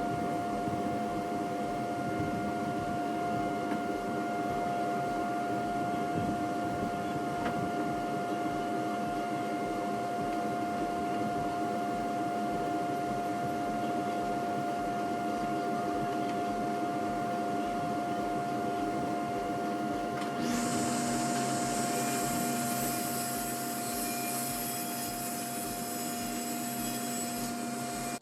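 An electric motor running steadily with a constant whine and a faint regular pulsing. About twenty seconds in, a hiss and a second, lower tone join it.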